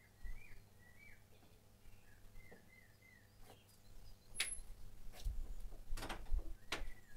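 Small birds chirping in short, quick notes, with a few sharp clicks and low thuds from about halfway through.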